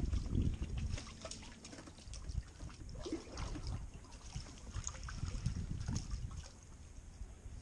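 A hooked crappie splashing at the water's surface as it is reeled in on a spinning rod, with small ticks and handling noise. A low rumble is loudest near the start.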